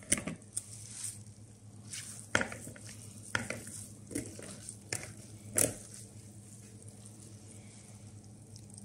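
Grated zucchini squeezed by hand in a stainless mesh strainer to press out their water: a scatter of short crackles and knocks, falling away in the last few seconds.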